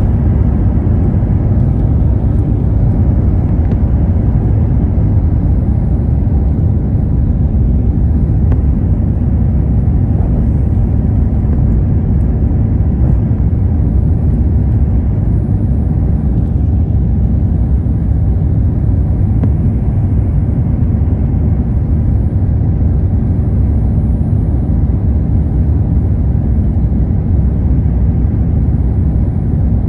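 Jet airliner cabin noise during the initial climb after takeoff: a steady low rumble of the engines and rushing air, heard from inside the cabin at a window seat.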